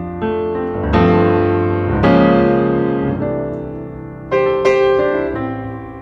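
Background piano music, with chords struck about a second in, two seconds in and around four and a half seconds in, each dying away.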